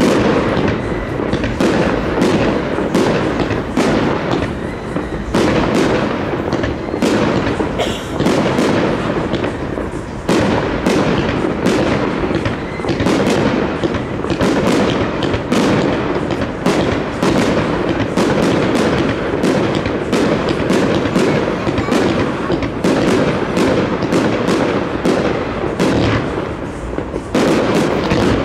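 Fireworks display: aerial shells launching and bursting in a rapid, unbroken run of bangs.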